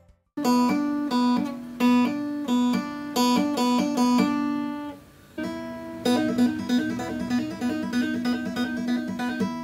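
Acoustic guitar played with two-handed tapping: rapid repeated hammer-ons and pull-offs on the high E string, tapped fretted notes alternating with the open string. It comes in two short phrases with a brief break about five seconds in.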